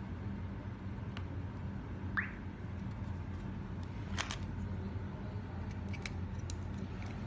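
Handling noise from a plastic car GPS unit and its suction-cup mount in a plastic bag: light clicks and knocks, with a short cluster of them about four seconds in, over a steady low hum. One short squeak about two seconds in.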